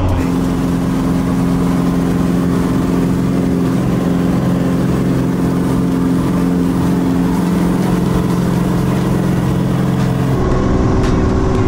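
Single-engine propeller airplane's engine and propeller droning steadily at takeoff power during the takeoff roll, heard from inside the cabin. The drone changes tone near the end.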